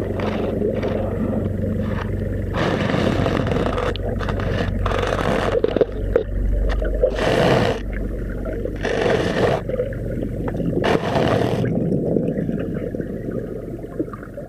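Muffled underwater sound through a camera in the sea: a steady low rumble, with bursts of rushing water noise every couple of seconds.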